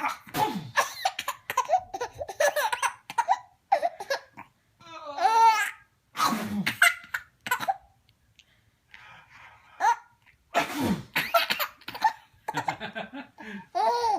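A man sneezing loudly, about three times, and a baby breaking into high-pitched belly laughs after the sneezes.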